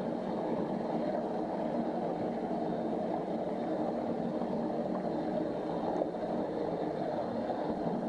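Steady, muffled underwater noise picked up through an action camera's waterproof housing, with a faint hum in it.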